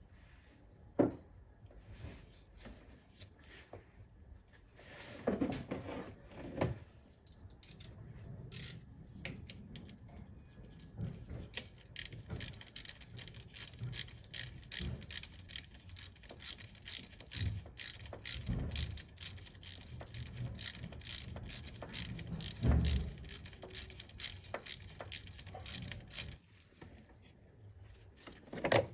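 Hand tools working on an engine: scattered metallic clinks and knocks, then a long run of rapid clicking and rattling that stops about three seconds before the end.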